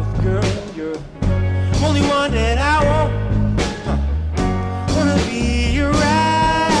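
Background music: a love song with a singing voice over a steady bass beat, the voice holding a long note near the end.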